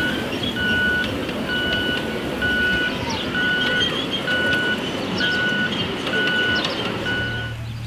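Scale freight cars of a 7.25-inch gauge miniature train rolling past with a steady running noise, over which an electronic warning beeper pulses about once a second, stopping near the end.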